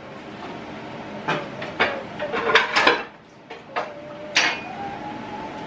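Kitchenware clinking and knocking: dishes, bowls and utensils handled on a worktop, with about six sharp clatters, a few of them ringing briefly.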